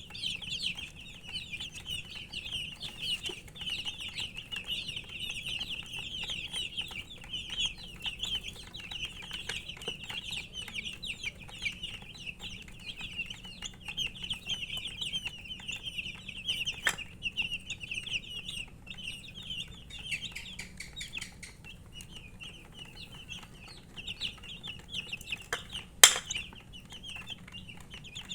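A group of baby chicks peeping nonstop, many high chirps overlapping. There is a sharp knock near the end and a fainter one a little past halfway.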